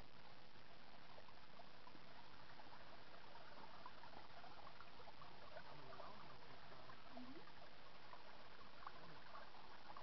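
Shallow spring water trickling over gravel and between stones: a steady babble with many small bubbling gurgles.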